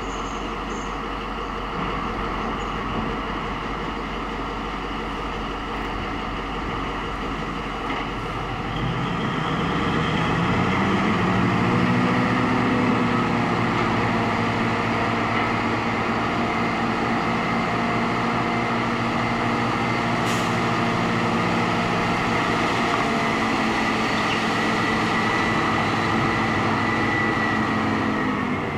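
Caterpillar 777D haul truck's V8 diesel engine idling, then revving up about nine seconds in and held at high revs while it drives the hydraulic hoist raising the dump body to tip the load.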